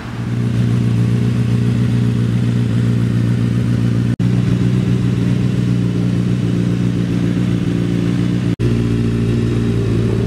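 Honda CBR1000RR inline-four engine idling steadily through a Termignoni exhaust, with a constant pitch and no revving. The sound breaks off for an instant twice.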